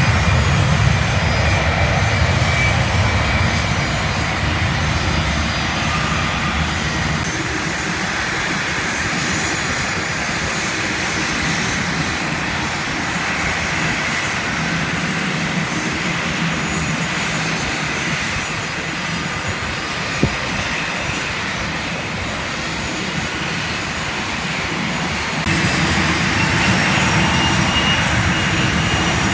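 Engines of business jets taxiing: a steady rumble with a high whine over it, getting louder about 25 seconds in as an aircraft comes closer.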